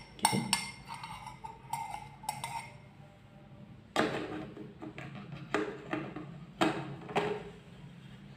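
Metal teaspoon clinking against a glass while a small amount of liquid is handled: a quick run of small clinks in the first couple of seconds, then a few louder separate knocks.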